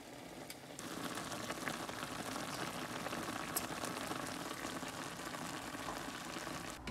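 Instant ramen noodles cooking in a pan of boiling water: a steady bubbling hiss with small pops, which comes up about a second in.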